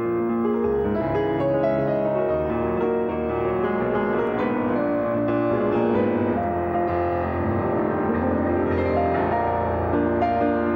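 Instrumental music led by piano: slow held chords over a steady bass line.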